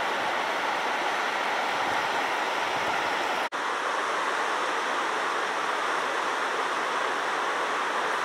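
Floodwater rushing over rocky rapids: a steady whitewater rush that breaks off for an instant about three and a half seconds in.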